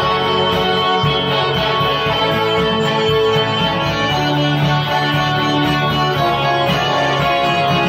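Twelve-string acoustic guitar strummed at an even level, an instrumental tune of chords with no singing.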